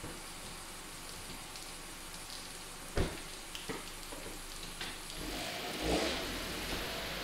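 Steady hiss with a single sharp click about three seconds in. From about five seconds a low rumble swells as the 2009 Kia Sportage starts to pull forward on wet pavement.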